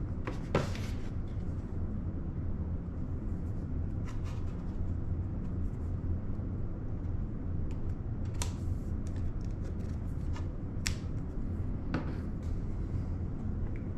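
A few scattered clicks and taps from handling a yard sign and its post pieces, over a steady low hum.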